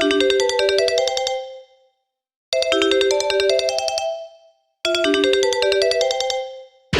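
Sony Xperia ringtone played back as MIDI: a short, bright melodic phrase sounds three times, each ringing out and then stopping with a brief silence before the next. Right at the end a dense wall of many notes sets in.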